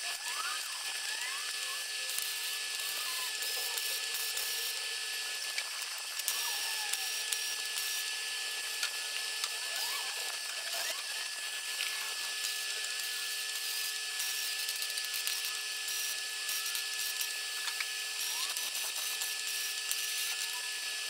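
MIG welder arc crackling steadily as it welds a joint on a mild steel exhaust pipe.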